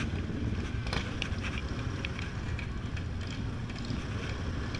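Yamaha Zuma 125 scooter's small single-cylinder engine running steadily at low riding speed, with wind rumbling on the microphone.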